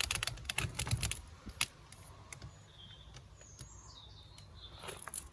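A few sharp clicks and knocks in the first second or so, then faint high chirps.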